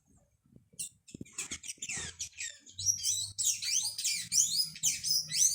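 Hummingbird chattering: rapid, high, squeaky chips and short sliding twitters. They are sparse at first and become a dense, louder run about three seconds in.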